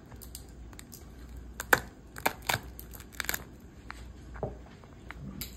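Cooked blue crab being picked apart by hand, the top shell pried off, with the shell cracking and snapping in a series of sharp clicks and tearing sounds. The loudest crack comes about a third of the way in.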